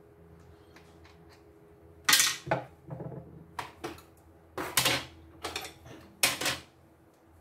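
Plastic side cover of an embroidery machine being pulled off and handled: a run of sharp plastic clacks and rattles, loudest about two seconds in, near five seconds and once more shortly before the end.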